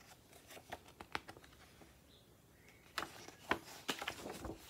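A picture book being handled and a page turned: scattered light paper clicks and rustles, a quiet gap in the middle, then a busier run of rustles and flicks as the page turns near the end.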